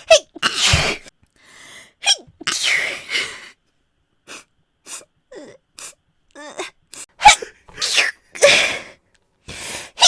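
A woman's sneezes in a rapid string: several loud sneezes with shorter, softer ones between.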